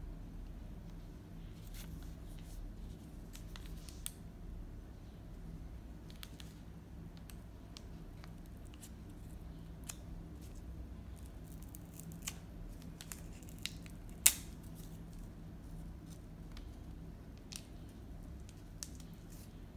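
Scattered small clicks and light rustles of paper packaging being handled, with one sharp click about fourteen seconds in, over a low steady hum.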